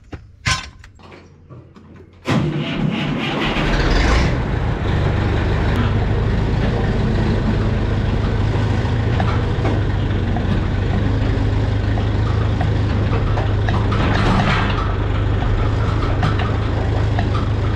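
A few knocks, then about two seconds in the CBT 8240 tractor's diesel engine starts and runs steadily as the tractor drives off.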